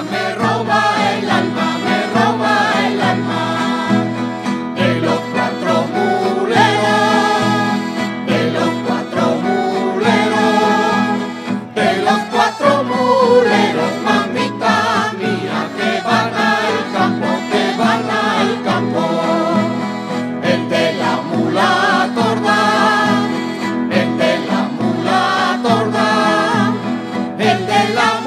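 Live folk song sung by a group of voices to guitars and other plucked string instruments.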